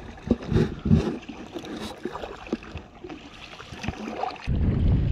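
Small splashes and lapping of water against an inflatable packraft on calm water. About four and a half seconds in, this gives way to a steady, louder low rumble of wind on the microphone.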